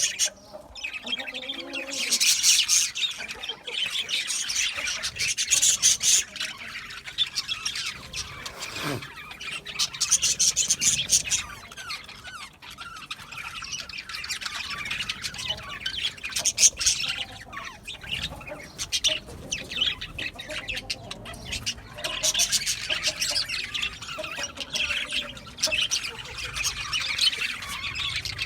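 A flock of budgerigars chattering and chirping without pause, rising every few seconds into louder bursts of rapid, high-pitched calls.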